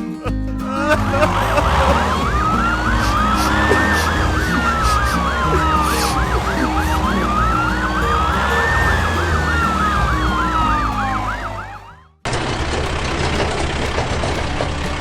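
Two emergency-vehicle sirens sounding together, one a slow wail rising and falling about every five seconds and the other a fast yelp, over background music. The sirens fade out about twelve seconds in.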